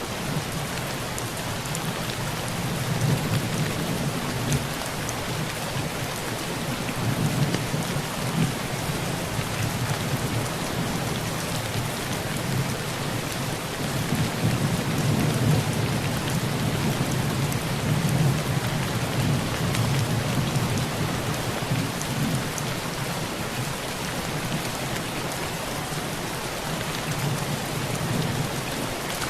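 Heavy rain pattering steadily on a tin roof, with low rolls of distant thunder swelling and fading several times.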